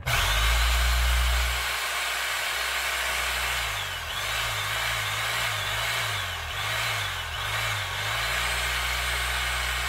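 Makita electric demolition hammer run at no load, its motor running steadily after a small shot of new grease on top of old, blackened grease. It starts abruptly, is a little louder in the first second or so, and is switched off at the very end.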